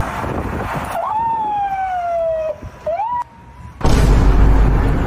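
Police siren wailing: one long tone that falls slowly in pitch, swoops back up and cuts off suddenly. Loud rushing noise comes before it and starts again abruptly near the end.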